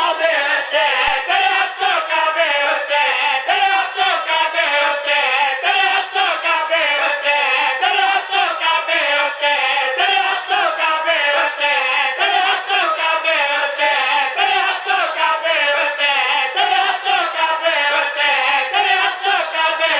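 Several men singing a Punjabi devotional chant together through a PA system, in a steady rhythm without a break.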